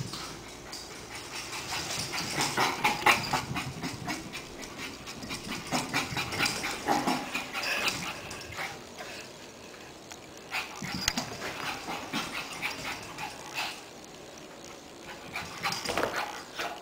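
Shih Tzu puppy in a frenzy of play, running about and chasing her tail, making dog noises in irregular bursts mixed with quick scuffles, loudest in the first half and again near the end.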